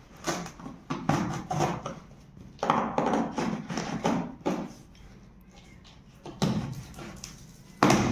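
Packing tape on a cardboard box being slit with a small knife: a run of short scraping and tearing noises, then louder cardboard scuffs as the box flaps are pulled open near the end.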